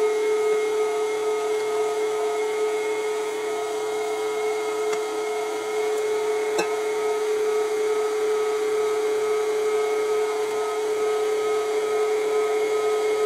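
KitchenAid Artisan stand mixer running with its whisk attachment, beating pound cake batter: a steady motor whine held at one pitch.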